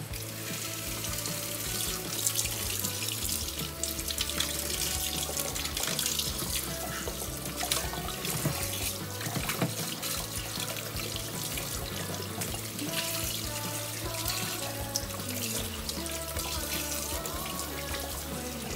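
Tap water running into a kitchen sink with irregular splashing as raw pork intestines are rinsed under it. Background music with steady low notes plays alongside.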